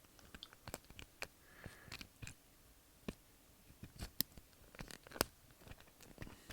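Lock pick and tension wrench working a door knob's pin-tumbler lock, heard close up: irregular sharp clicks and short scratches as the pick drags and lifts the pins.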